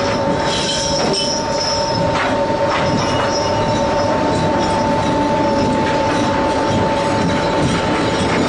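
Deck machinery and trawl gear of a stern fishing trawler while the trawl is being shot: a loud, steady mechanical din with two constant whining tones. A few knocks come in the first three seconds.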